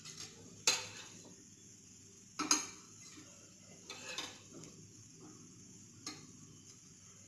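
Steel spatula scraping under poha cutlets on a non-stick pan and clinking against the plate as each is lifted over: about five sharp clinks a second or two apart, the loudest about two and a half seconds in.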